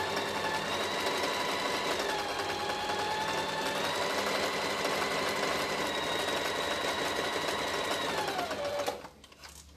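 Janome 523H electric sewing machine stitching two layers of fabric together at a steady speed. Its motor whine holds an even pitch, dips slightly about two seconds in, then falls away as the machine stops near the end.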